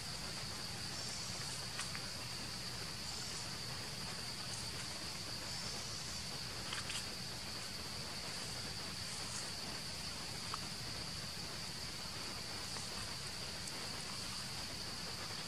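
Steady, high-pitched insect chorus droning without a break, with a few faint clicks.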